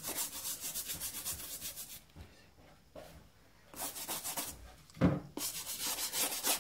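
Toothbrush bristles scrubbing baking soda paste into the rubber midsole of a white Nike Air Force 1 trainer: quick back-and-forth strokes, several a second. The strokes stop for about a second and a half near the middle, and a single knock comes about five seconds in.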